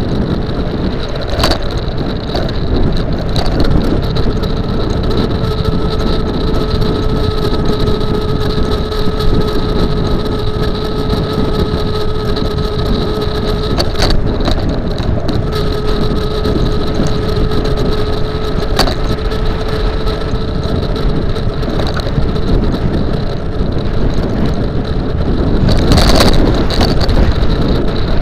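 A dual-motor 48-volt electric scooter riding along a road: wind rushing over the microphone and tyre rumble, with a steady electric-motor whine through most of it. A few sharp knocks come from bumps, and there is a louder rush near the end.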